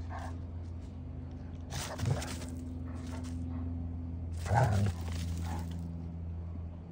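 Two dogs sniffing each other at close range: short breathy bursts about two seconds in and a louder one about four and a half seconds in. A steady low hum runs underneath.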